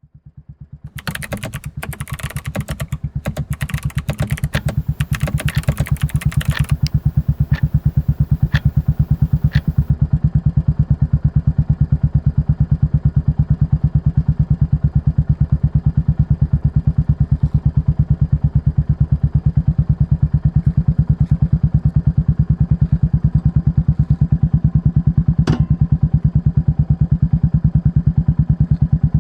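Royal Enfield Meteor 350's single-cylinder engine idling steadily through an aftermarket exhaust, an even thudding beat with no revving. Clicks and clatter sound over it for the first several seconds, and there is one more sharp click later on.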